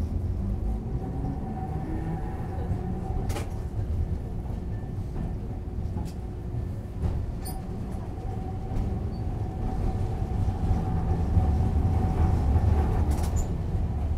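Nagasaki Electric Tramway streetcar running on its rails, heard from inside the car: a steady low rumble of wheels with a steady motor hum and a few sharp clicks, growing louder in the last few seconds.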